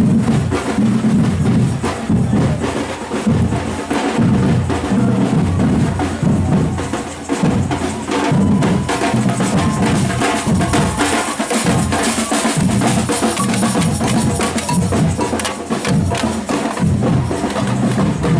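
Procession drums, bass drum and snare, playing a steady marching beat with many sharp snare hits.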